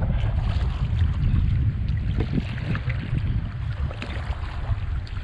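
Wind buffeting the microphone as a steady, uneven rumble, over water splashing and lapping around a kayak on the water.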